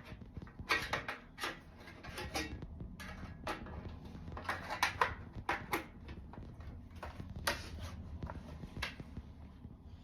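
A DVR's metal top cover being fitted back on by hand, with irregular clicks and knocks of sheet metal over a low hum.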